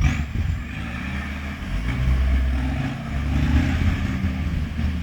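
Motor vehicle engine running, its pitch rising and falling, getting louder about two seconds in and again near three and a half seconds.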